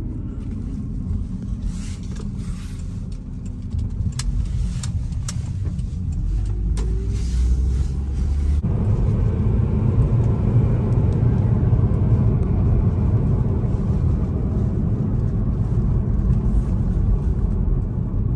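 Car cabin noise while driving: a steady low engine and road rumble heard from inside a Honda, with a few faint ticks in the first half. After a cut about nine seconds in, the rumble is a little louder.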